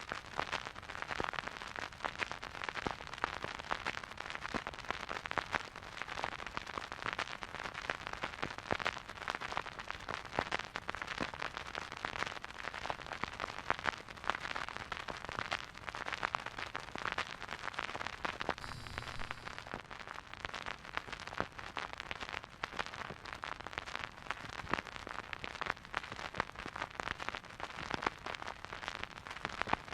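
Vinyl record surface noise from a stylus riding a silent groove: a dense, steady run of small clicks and pops over a soft hiss.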